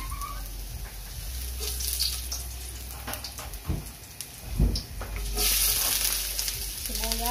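Julienned ginger sizzling in hot oil in a stainless steel wok, with spatula scrapes and a couple of dull knocks near the middle. About five seconds in, chopped onions go into the oil and the sizzle gets louder and brighter.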